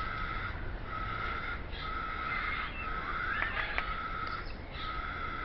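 Bird sounds in an aviary: a flat-pitched call repeated several times, each note lasting under a second, with a few short chirps about three and a half seconds in.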